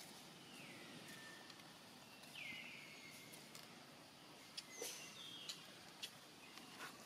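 Two faint, high-pitched animal calls, each sliding down in pitch and then holding briefly, the second a little louder. Several faint clicks follow near the end.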